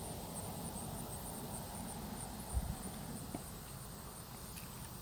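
Insects chirping steadily in a fast, high-pitched pulse over low outdoor rumble, with one soft thump about halfway through.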